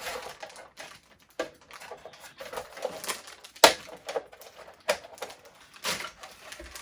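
Plastic toy parts and packaging being handled: irregular sharp clicks and snaps with crinkling in between, the loudest snap a little past halfway.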